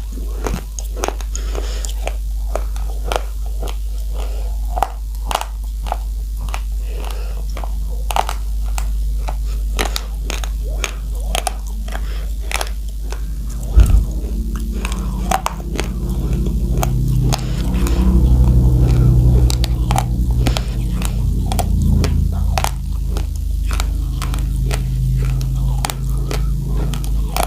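Raw uncooked rice being crunched and chewed close to the microphone: dense, irregular crisp cracks, several a second, over a steady low hum. About halfway through, a louder low murmur joins the crunching.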